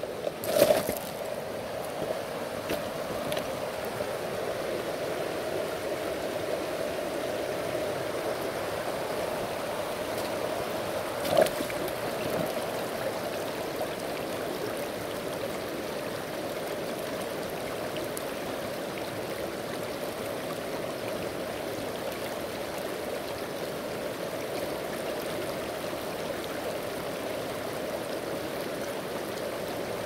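Shallow mountain stream flowing steadily over rocks. There are a couple of brief knocks, one about half a second in and a louder one about eleven seconds in.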